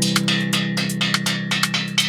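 Instrumental background music: a held chord over a quick, steady percussive beat.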